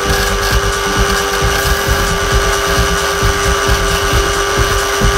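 Drill running a sanding disc attachment with a pine wheel pressed against it: a steady motor whine over the hiss of sanding, stopping near the end.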